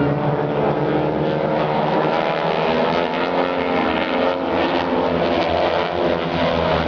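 Engines of a four-plane aerobatic formation flying loops, a loud, steady drone.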